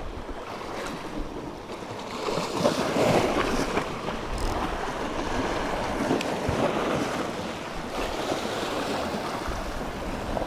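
Sea waves washing against shoreline rocks, swelling and easing, with wind buffeting the microphone.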